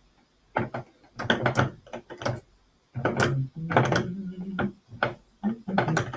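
Threaded caster stem being screwed into a plastic utility-cart leg: a scatter of clicks and knocks, then a long low creaking grind as it turns about halfway through, and a shorter one near the end.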